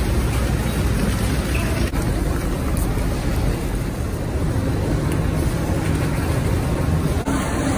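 Steady mechanical din of a large industrial kitchen: extractor hoods and motor-driven kettle stirrers running, heaviest in the low rumble, with brief breaks where the shots change about two seconds in and near the end.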